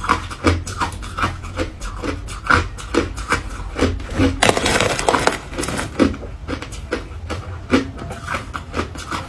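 Close-miked crunching of ice being chewed, sharp crunches two or three a second. About four and a half seconds in, a denser scraping crunch lasting about a second as a spoon digs into crushed shaved ice.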